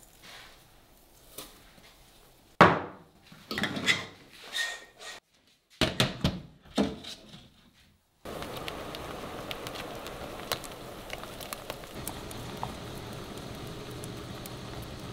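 A metal spoon scraping in a glass jar, then stainless-steel saucepans knocking and clanking as they are handled on a glass-top hob. From about eight seconds in, a steady simmering of fruit purée in a saucepan, with small pops and a spoon stirring against the pan.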